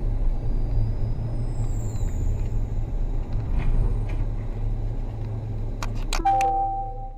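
Low, steady rumble of a car's engine and road noise heard from inside the cabin. Near the end there are a few sharp clicks, then a short chime of steady tones at a few pitches.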